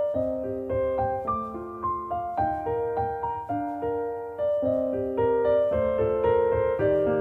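Background music: a gentle piano piece, notes struck one after another with several ringing together.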